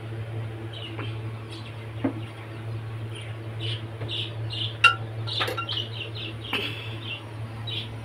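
Small birds chirping in quick repeated short calls over a steady low hum, with a sharp click about five seconds in.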